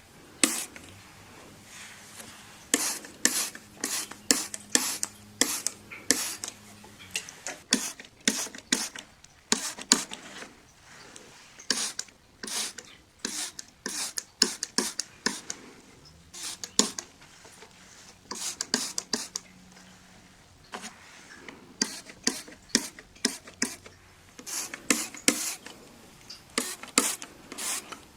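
Window glass being wiped and rubbed during cleaning: many short, quick rubbing strokes in clusters, with brief pauses between runs.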